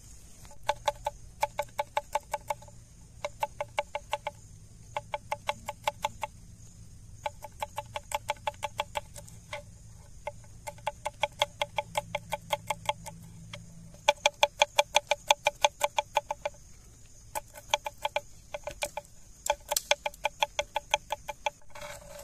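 A knife chopping quickly on a cutting board, about six strokes a second, in short runs with brief pauses between them.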